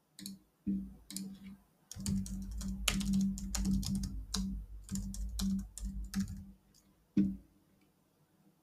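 Typing on a computer keyboard: a few separate key clicks, then a quick run of keystrokes for about four seconds, each with a low, hollow thump. One last click comes about seven seconds in.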